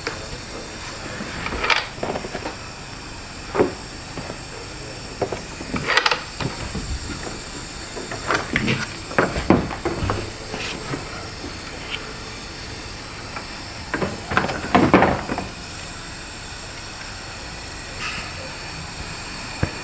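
Compressed air hissing steadily through a cylinder leak-down tester on a cylinder leaking 90%, with scattered knocks and clatter from handling tools and parts.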